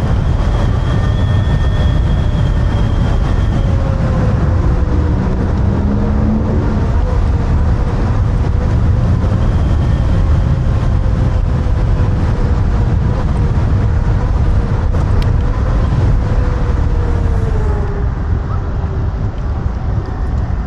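Wind rushing over the camera microphone at riding speed, with the electric whine of the Kaabo Wolf King GTR's hub motors. The whine drifts in pitch with speed and falls near the end as the scooter slows.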